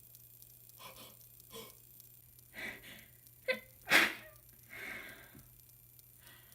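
A sick person sneezing: a few short gasping in-breaths build up over a couple of seconds, then one loud, sudden sneeze about four seconds in, followed by a breathy out-breath.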